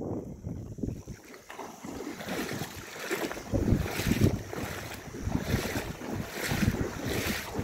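Legs wading through shallow seawater, splashing with each stride about twice a second, with wind on the microphone.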